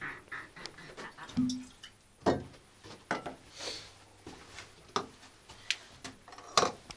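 Glass bottles and jars being handled on a wooden shelf: a few separate sharp knocks and clinks, with quiet between them.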